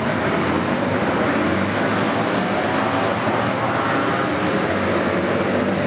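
Flat-track racing motorcycle engines running at speed: a steady, loud din of several engines, with their pitches sliding up and down.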